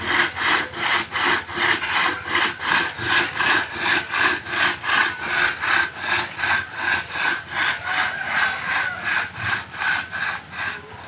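Two-man hand saw cutting through a log, worked back and forth in a steady rhythm: a rasp on every stroke, two or three strokes a second, with a faint high ring under it. The sawing stops at the very end.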